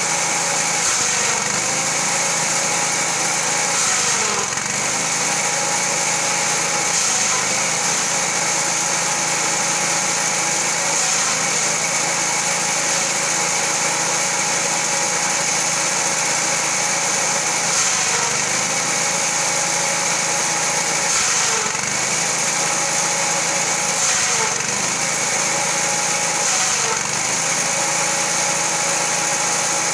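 Engine-driven grass chopper (forage chopper) running steadily, with a high steady whine over the engine.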